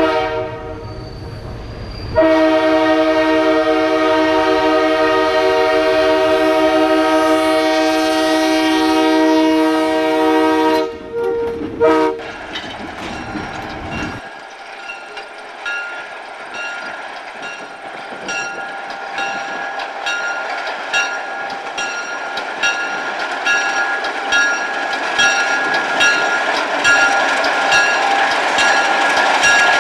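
MLW S-12 diesel switcher with its ALCO 539 engine rumbling. Its air horn sounds one long blast of about eight seconds, then two short blasts. After that the locomotive and passenger cars roll slowly over the rails with rapid wheel clicking.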